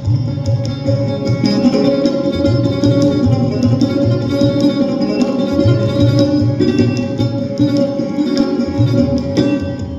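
Hindustani classical music: sarod played in fast plucked runs over a held drone, with tabla accompaniment striking a repeated deep bass pattern.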